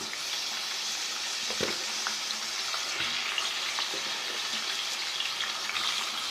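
Chicken pieces frying in hot ghee, a steady, dense sizzle that gets louder right at the start, with a few short knocks as the pieces are stirred.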